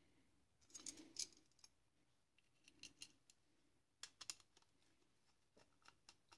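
Near silence broken by a few short clusters of faint clicks and light metallic taps, from small bolts being handled and fitted to an alternator's end plate.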